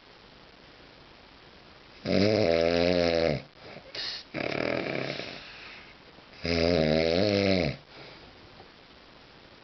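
A man snoring heavily in his sleep: two loud, rattling pitched snores about four seconds apart, each lasting over a second, with a breathy exhale after the first.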